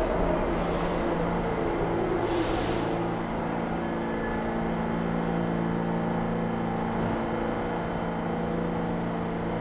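Subway train coming to a stop at a platform: its rolling noise dies away, the air brakes hiss twice in short bursts, then it stands with a steady hum from its onboard equipment. A faint hiss near the end as the doors open.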